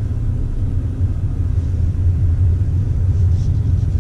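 Steady low rumble inside the cabin of a Mercedes-Benz A200 (W177) on the move: road and drivetrain noise from the car as it drives.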